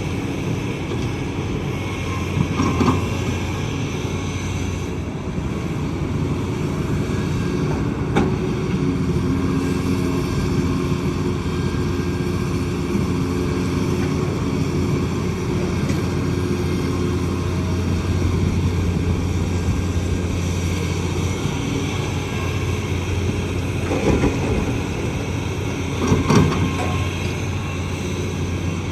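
Kobelco excavator's diesel engine running steadily, with a few short knocks: one near the start, one about eight seconds in and two near the end.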